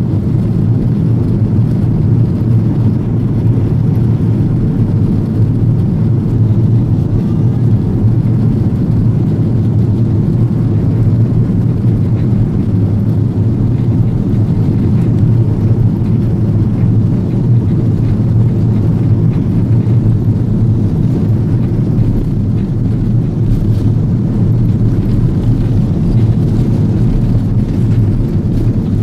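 Steady low rumble inside the cabin of an Airbus A330-200 taxiing: the engines at low thrust and the landing gear rolling on the taxiway.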